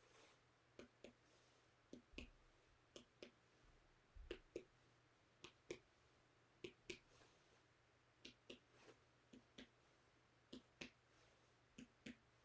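Indirect percussion of the abdomen: a fingertip tapping on a middle finger laid flat on the belly. The faint taps come mostly in pairs, about once a second, sounding each quadrant for tympany or dullness.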